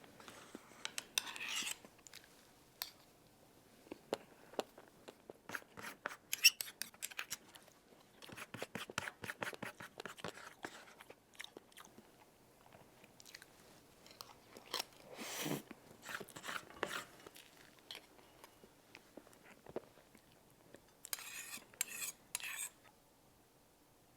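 Eating sounds: a person chewing with mouth sounds, broken by scattered clicks of cutlery on a dish, coming in short clusters.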